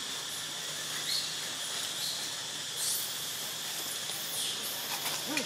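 Steady outdoor background hiss with a faint, even high-pitched drone, broken by a few faint brief noises and a short low sliding sound near the end.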